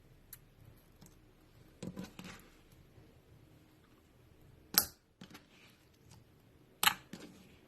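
Slime being handled by hand: soft squishing about two seconds in, then two sharp pops about two seconds apart.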